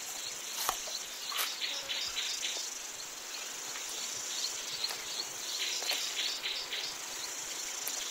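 Steady high-pitched chirring of an insect chorus in the wild, with a few sharp clicks and cracks standing out, the clearest about one and a half seconds in.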